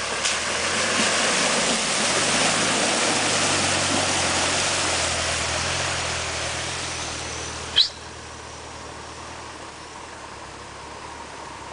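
Land Rover Discovery ploughing through a deep muddy puddle: its engine running under load while water splashes and surges around the wheels, loudest in the first few seconds and fading as it pulls away. About eight seconds in, a brief sharp squeak, after which only a low engine hum and lapping water remain.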